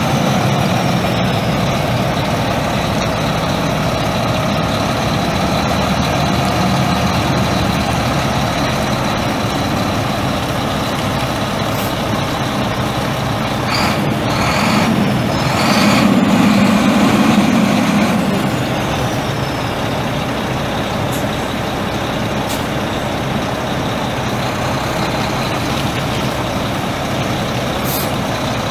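Mack MP7 10.8 L inline-six turbo diesel of a 2007 Mack CXP613 semi truck running steadily at idle. It gets briefly louder about halfway through, with a few short hisses.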